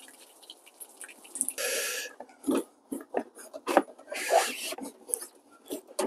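Hot water poured from a kettle splattering onto a plastic car bumper and the ground. From about a second and a half in come short scraping rubs and knocks as the heat-softened plastic bumper cover is worked by hand, with two longer rasping rubs near two and four seconds.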